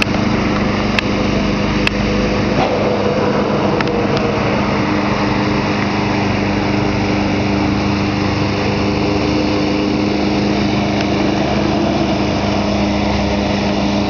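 Snapper walk-behind mower's 5 hp Briggs & Stratton single-cylinder engine running steadily at an even speed, with a few faint clicks.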